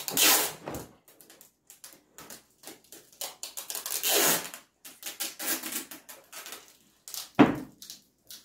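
Wide packing tape pulled off its roll in a series of ripping bursts as it is wound round and round, with a single thump about seven seconds in.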